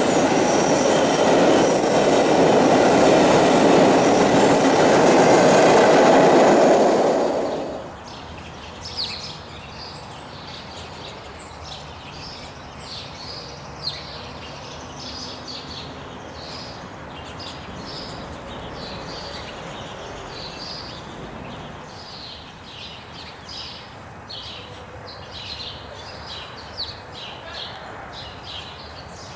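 VIA Rail passenger train cars passing close by, wheels running on the rails, loud for about the first eight seconds, then cutting off suddenly. After that comes a much quieter stretch with small birds chirping repeatedly.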